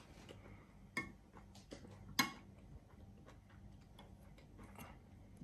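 Chopsticks clicking against a plate while picking at a roasted tuna collar: two sharp clicks about a second apart, the second louder, with a few faint ticks between.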